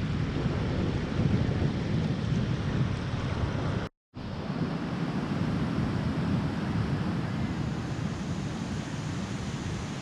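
Wind buffeting the microphone over the wash of Caspian Sea surf. The sound cuts out for a moment about four seconds in, then the gusty wind noise carries on.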